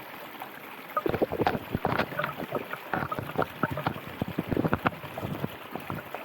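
River water flowing, with a constant rush and, from about a second in, many irregular close splashes and gurgles.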